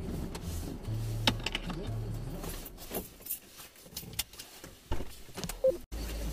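Keys jangling and clicking in a parked car, a scatter of small sharp rattles after a low rumble stops about two and a half seconds in. A steady low hum starts abruptly near the end.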